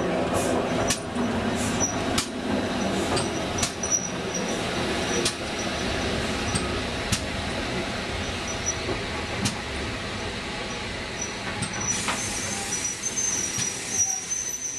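A GWR 4575-class 2-6-2 tank steam locomotive, No. 5542, running past and drawing away with its coaches. The coaches roll by behind it, with uneven clicks of the wheels over rail joints.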